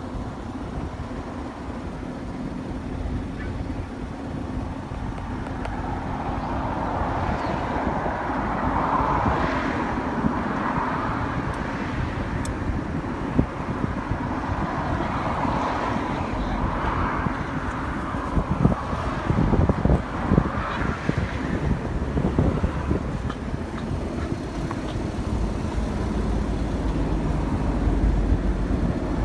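Road traffic noise, with several vehicles swelling past through the middle and a steady low rumble.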